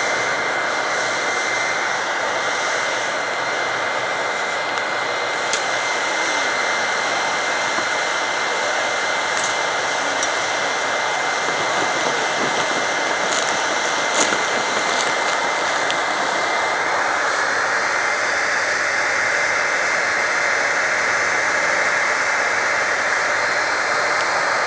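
Forced-air blast driving a homemade aluminium-melting foundry: a steady rush of air roaring through the burning fuel around the crucible, with a few sharp clicks. A steady high whine sits over the rush and fades out about two-thirds of the way through.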